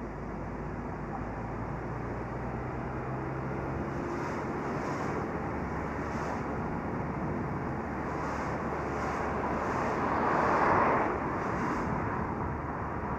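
Car driving on an asphalt road: steady tyre and road noise with wind rushing over the microphone, building gradually and swelling louder for about a second near the end.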